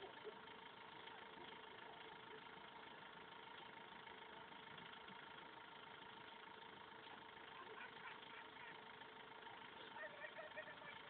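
Near silence: a faint steady hum over low background noise, with faint distant voices near the end.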